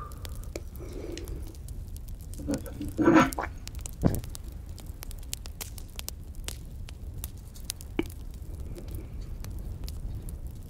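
Crackling campfire sound laid over the scene: a steady run of small pops and snaps over a low rumble. A brief louder sound about three seconds in is followed by a single thump about a second later.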